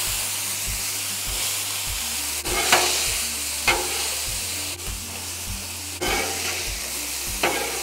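Corn, black beans and diced onion sizzling on a hot Blackstone steel griddle top, with a steady hiss. A metal spatula clacks and scrapes against the plate a few times as the vegetables are stirred.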